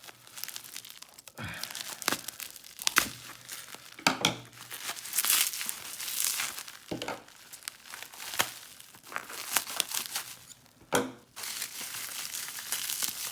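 Packing wrapping being crumpled and torn open by hand, with irregular crinkling and several sharp rips.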